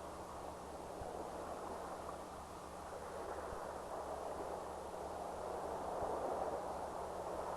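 Faint steady rushing noise with a low hum underneath, an even background with no distinct events.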